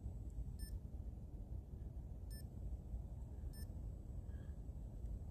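Baketan ghost-detector toy giving short, high electronic beeps, three of them at uneven spacing, over a low background rumble. It beeps while its light shows yellow, the colour the users read as a spirit being nearby.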